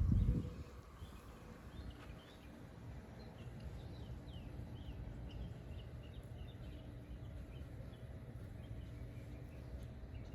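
Small birds chirping, a string of short, quick high calls starting about three seconds in, over faint outdoor background noise. A dull low thump at the very start.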